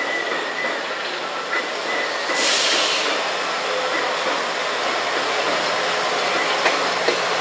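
KiHa 100 series diesel railcar drawing near with its engine running, growing louder toward the end. A short burst of hissing air about two and a half seconds in.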